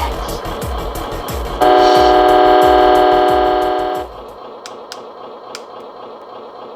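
Background electronic music with a bass beat. About a second and a half in, a loud, held horn-like tone sounds for over two seconds. After it the beat drops out and the music goes quieter.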